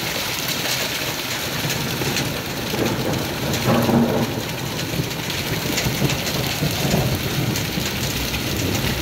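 Small hailstones pelting down in a dense, steady rattle of tiny impacts. A low rumble of thunder rolls underneath, loudest about four seconds in.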